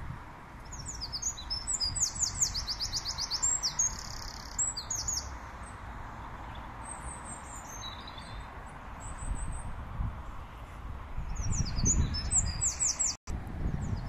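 A small songbird singing: fast runs of high, quickly repeated notes, one long phrase in the first few seconds and another near the end, over a low rumble.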